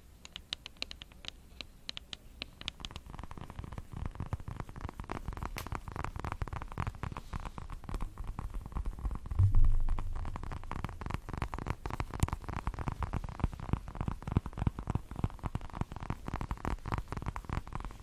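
Long fingernails tapping and scratching on a small round object held close to the microphone: crisp separate clicks for the first few seconds, then a dense, fast, duller patter of taps. A low bump of handling about nine and a half seconds in is the loudest moment.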